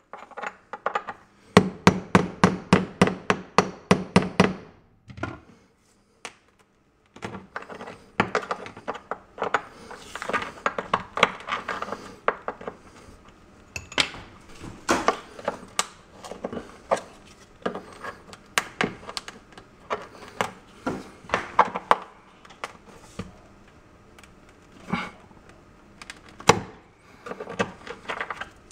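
Metal chisel tapping and chipping at a travertine tile to break it out of the backsplash: a quick run of sharp taps, a brief pause, then irregular taps and scraping as pieces come loose.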